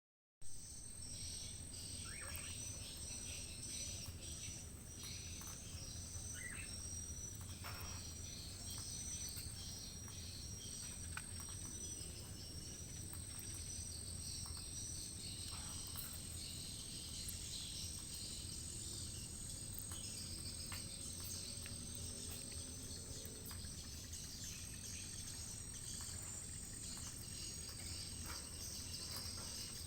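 Outdoor insect chorus: a steady high-pitched drone with short high chirps repeating about once a second for the first ten seconds or so, and a few scattered bird calls.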